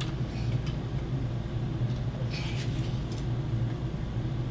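A steady low hum throughout, with a few brief soft hissing scrapes about half a second in and again around two and a half to three seconds in.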